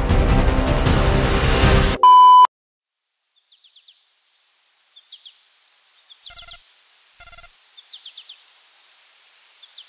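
Background music that cuts off about two seconds in with a short, loud electronic beep, then quiet outdoor ambience with small repeated bird chirps and two louder buzzy calls about a second apart.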